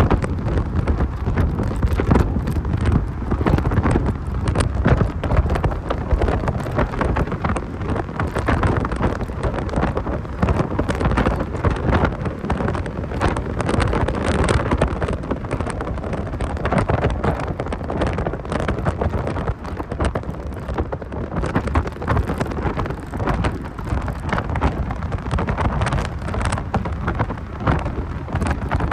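Wind buffeting and crackling over the microphone of a 1990 Mazda Miata on the move, with the car's driving noise underneath and no clear engine note coming through.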